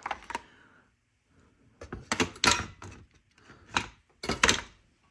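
Clicks and knocks in several short clusters: a loose chain brake part handled against the plastic body of a chainsaw.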